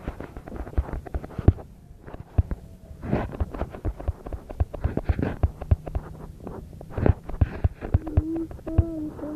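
A dense, irregular run of light clicks and taps from hand work with craft materials, with a short pitched tone near the end.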